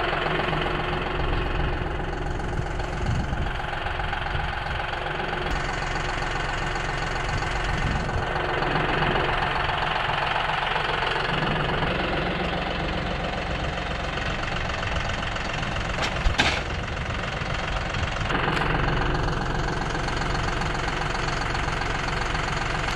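John Deere 5075E tractor's diesel engine running steadily, with one short sharp knock about two-thirds of the way through.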